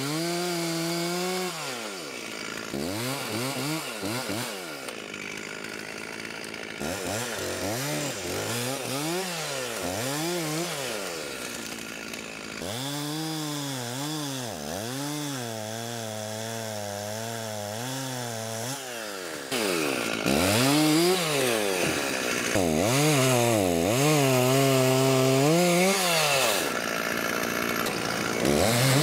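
Stihl MS 661 two-stroke chainsaw cutting through an oak log, its engine pitch repeatedly rising and then sagging as the chain bites into the wood. It gets louder in the last third.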